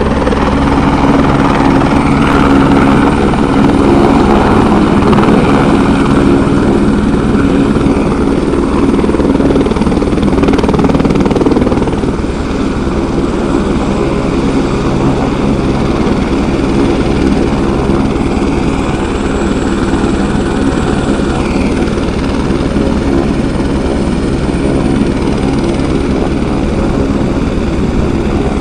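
Airbus AS350-type light helicopter landing: the rotor and turbine sound loud with a fast steady beat while it comes down, easing a little about twelve seconds in as it settles on its skids, then running steadily on the ground with the rotor still turning.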